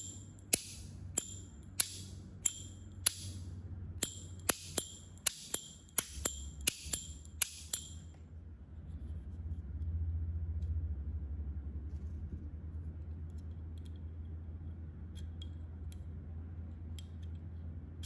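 Lid of a slim brass Zorro lighter, a Zippo-style flip-top, flicked open and snapped shut over and over: about fifteen sharp metallic clicks, each with a short high ping, roughly one or two a second. They stop about eight seconds in, leaving only faint ticks of the lighter being handled.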